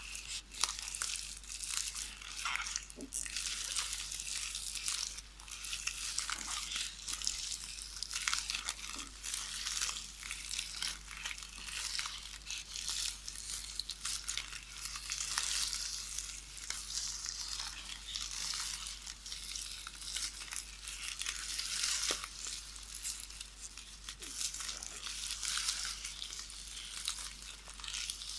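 VHS videotape being knitted by hand: a continuous crinkly rustle of the plastic tape, dotted with small crackles.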